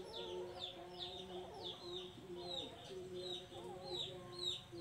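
Animal calls: short, high, falling peeps repeating about twice a second over lower, drawn-out calls.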